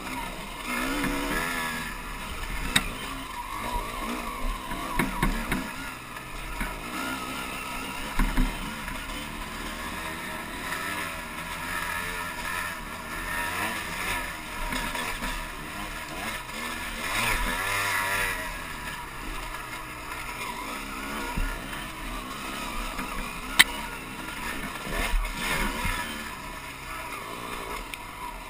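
Dirt bike engine running under way, its revs rising and falling as it is ridden along a rough dirt trail, with a few sharp knocks along the way.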